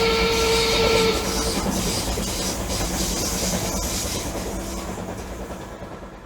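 A steady rumbling clatter with a held two-note whistle over its first second or so, then fading away slowly over several seconds.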